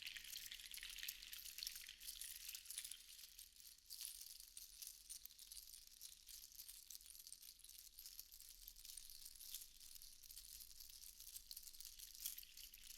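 Seashells rattling and clinking against one another in a soft, continuous, dense clatter of tiny clicks.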